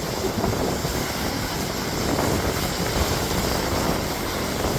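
Strong wind buffeting the microphone over the steady roar of waves breaking.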